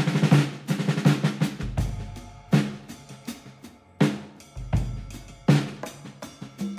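Drum-heavy background music: a quick run of snare and drum hits at the start, then strong accented hits about every one and a half seconds over a deep bass.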